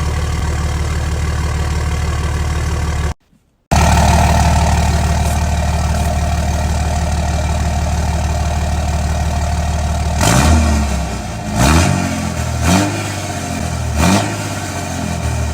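Dodge diesel pickup engine idling steadily through a homemade 6-inch axle-dump exhaust tip, with a half-second break about three seconds in. About ten seconds in it is revved four times in quick throttle blips, each rising and falling, before settling back to idle.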